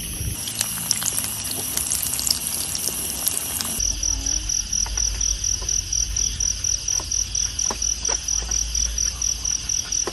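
Chicken pieces frying in oil in a pan on a camp gas stove, a dense crackling sizzle. About four seconds in this gives way to a cricket chirping in fast, even pulses, several a second.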